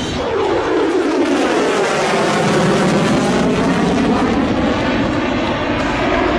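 Fighter jet flying past, its engine noise sweeping down in pitch over the first two seconds, then holding steady.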